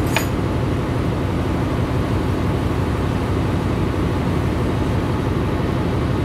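Steady, loud drone of running ship's engine-room machinery, with a short high click just after the start.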